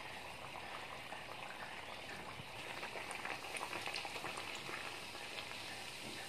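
A semolina puri deep-frying in hot oil in an iron kadai: a steady sizzle full of small crackles, a little louder about halfway through.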